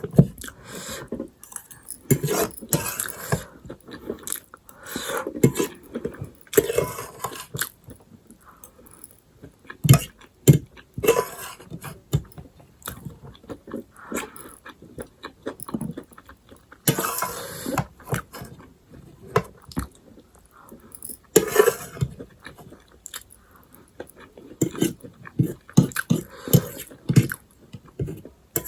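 Close-miked eating: a person chewing and biting food, with irregular wet mouth clicks and crunches, and a couple of longer, louder noisy mouth sounds about two-thirds of the way through.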